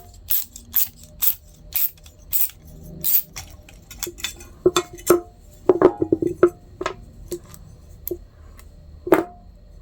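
Swivel-head ratchet and 11 mm socket working the pivot nut off a pair of steel hand shears, clicking about twice a second. Then steel parts clink together several times with a short ring, loudest in the middle and once more near the end.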